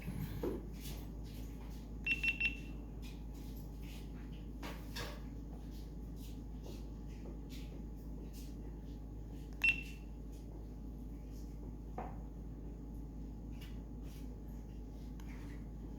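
GoPro camera beeping as it powers on: three short high beeps about two seconds in, then a single beep near ten seconds, over a faint steady hum.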